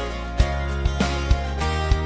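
Background music with a steady beat, about two strikes a second over held notes.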